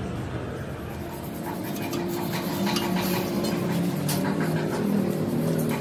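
Light metal clicks and scraping of a hand tool on a truck axle housing, over a steady low hum that sets in about a second and a half in.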